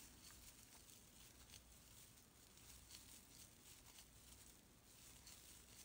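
Near silence, with faint scattered ticks and soft rustling of a crochet hook pulling yarn through stitches.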